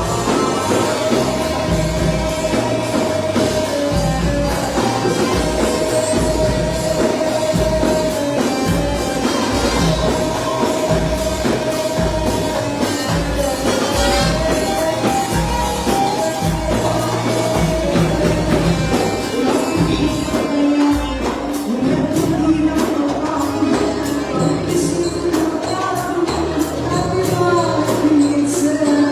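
Music: an Arabic pop song with a steady percussion beat under a held melody, with singing at times.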